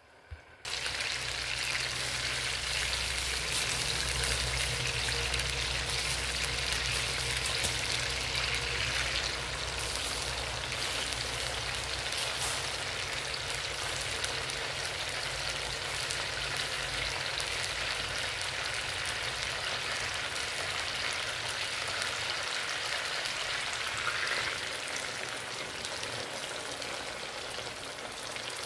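Breaded steaks frying in hot oil in a frying pan: a steady sizzle that starts suddenly about a second in, as the first piece goes into the oil.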